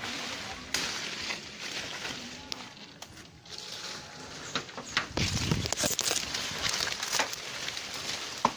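Dry leaves and twigs crunching and rustling as someone moves through undergrowth, with scattered sharp cracks. It gets louder for a couple of seconds about midway.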